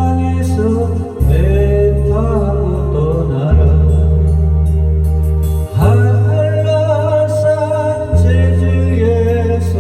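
A solo singer's voice, held and sliding between notes with vibrato, over a backing track of long held bass notes that change every second or two.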